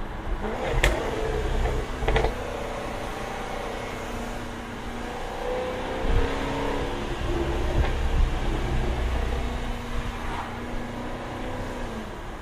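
Jaguar F-Type R's supercharged 5.0-litre V8 running under way, its pitch rising and falling with the revs. Two sharp exhaust cracks come about one and two seconds in.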